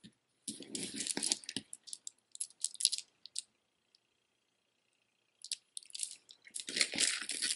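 Plastic beads on a knotted cord clicking and rattling against each other as a necklace is handled and gathered up in the hands. The clatter comes in two spells, with a pause of about two seconds in the middle.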